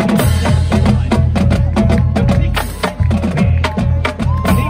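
Marching band drumline playing a cadence: rapid snare and tenor drum strokes over pitched bass drums, with several cymbal crashes.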